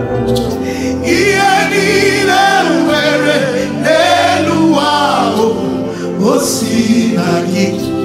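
Gospel music: a lead voice sings wavering runs over a choir and steady held backing chords, the lead coming in about a second in.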